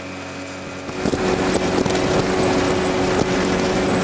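Motorboat's outboard motor running at speed, with water rushing past the hull; it comes in suddenly about a second in, loud and steady, with a high wavering whine over the engine. Before that only a fainter steady hum.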